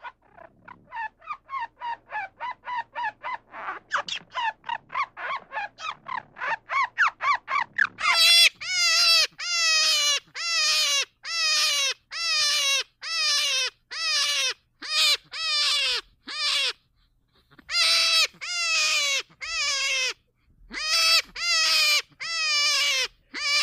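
Squirrel chattering in a fast run of short, rising calls, about four a second and speeding up. About eight seconds in, it gives way to a hare's loud repeated squealing calls, each falling in pitch, coming in quick series with short pauses.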